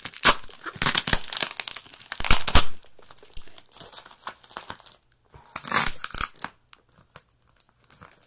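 Plastic packing tape on a heavily taped cardboard parcel being cut with scissors and pulled away by hand. It comes in noisy bursts: a dense stretch over the first three seconds, another burst around six seconds in, then it goes almost quiet.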